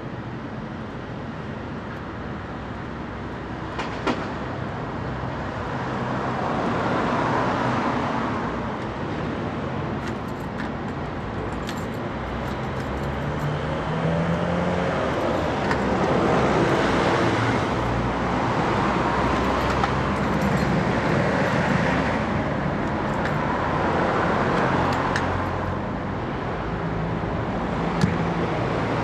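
Street traffic: cars passing one after another, the noise swelling and fading several times over a steady engine hum, with a few sharp clicks.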